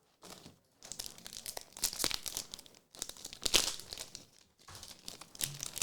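Crinkly trading-card packaging being handled and torn open, in two long spells of crackling with a shorter bit near the end.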